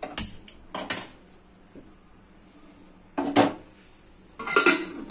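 Two sharp clicks from a spark gas lighter at the stove burner, then two metal clanks as a pressure cooker is handled on the stove.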